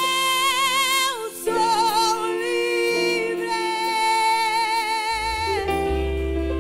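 A woman singing long held notes with wide vibrato in a gospel worship song, over sustained keyboard chords. A low bass note comes in about five seconds in.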